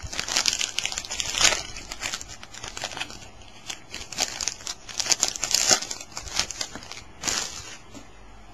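Wrapper of a Topps Stadium Club trading-card pack crinkling in irregular bursts as the pack is handled and opened.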